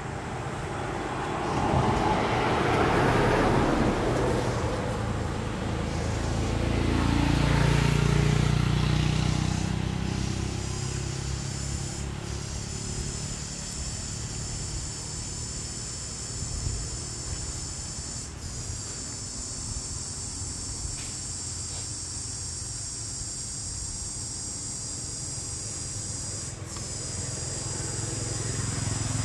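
Two swells of low vehicle rumble pass in the first ten seconds. After them a steady, high-pitched insect drone of cicadas or crickets runs on, with a few brief breaks.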